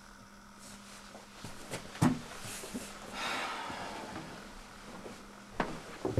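Indoor handling sounds: a sharp knock about two seconds in, a rustling hiss a second later, and two more knocks near the end, over a faint steady hum.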